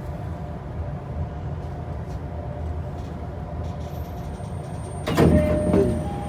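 Low steady rumble inside a Japanese commuter train. About five seconds in, the train's sliding doors open with a sudden loud rush, followed by steady beep tones.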